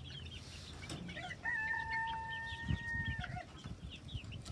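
Rooster crowing once, a long held call of almost two seconds about a second and a half in, over a flock of chickens clucking and peeping throughout.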